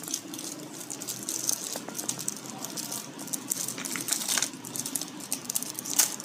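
Small plastic clicks and rattles of Play-Doh moulding tools and tubs being handled, with one sharper click near the end.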